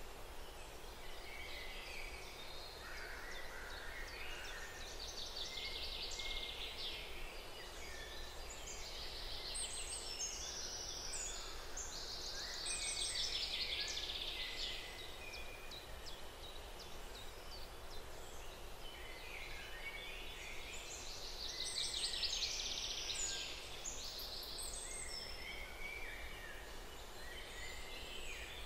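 Outdoor nature ambience: many birds chirping and singing over a steady background hiss. The song thickens and grows louder a few times.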